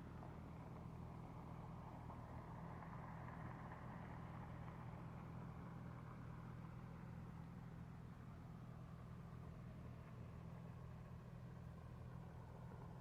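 Car engine running steadily at an even pitch and level, as at idle.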